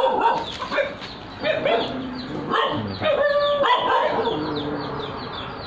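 Animal calls: many short, quick high peeps, with louder yelp-like cries about a second and a half in and again around three seconds in.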